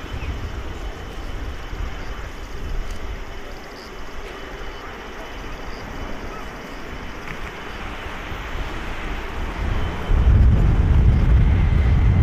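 Distant jet engine noise from a landing Boeing 747-8 freighter as it rolls out on the runway after touchdown. About ten seconds in, a deep low rumble swells sharply and stays loud.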